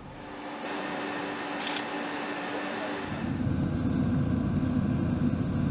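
Steady machinery hum and hiss that changes about three seconds in to a lower, rougher rumble.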